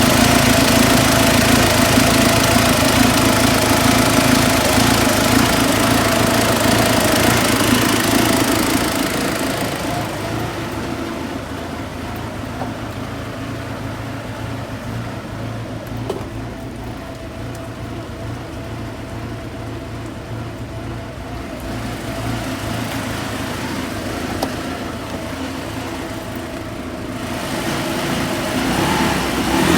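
Ford Ranger's WL four-cylinder diesel engine running after an overhaul. It is louder for the first nine seconds or so, drops to a quieter idle, and picks up again near the end. The mechanic says the fuel pump still has a slight problem.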